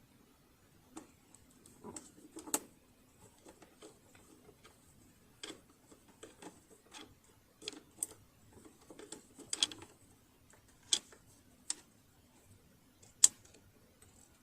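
Irregular clicks and light knocks of hands working on a half-disassembled sewing machine, with no steady running rhythm; the sharpest click comes near the end.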